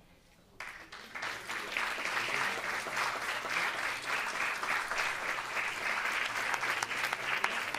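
Audience applauding, starting about half a second in after a brief hush and keeping up steadily.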